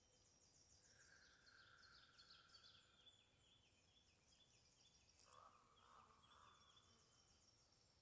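Faint wild birds calling: quick, repeated high chirps and trills, with two longer, lower calls, one about a second in and one past the five-second mark.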